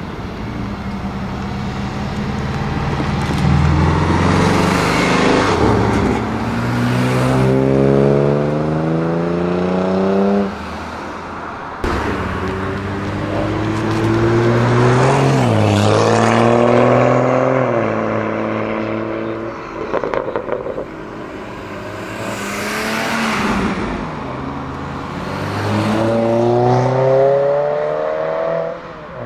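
Several cars accelerating away one after another, each engine revving up steadily in pitch. One pull drops briefly at a gear change, then climbs again.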